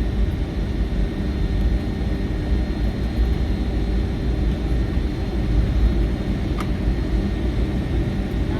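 Steady low cabin rumble of a Boeing 757-300 taxiing, its Rolls-Royce RB211 engines at idle, with a faint steady whine above it. A single click comes about six and a half seconds in.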